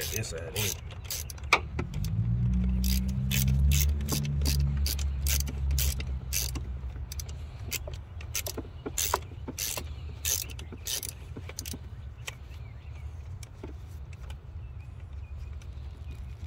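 Hand ratchet clicking in short irregular runs as bolts are tightened down on a coil pack install. A low vehicle engine rumble swells from about two seconds in and fades after about six seconds.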